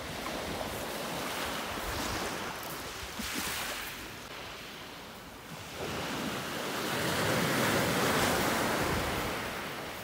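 Small sea waves breaking and washing up a pebble beach. The surf swells twice, once in the first few seconds and louder from about six seconds in.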